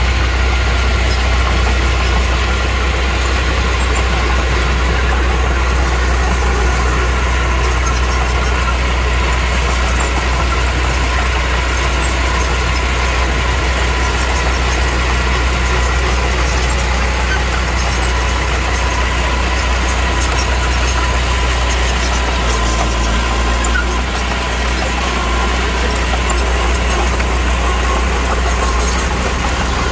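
Heavy construction machine's diesel engine running steadily, with a slight dip in level a little over two-thirds of the way through.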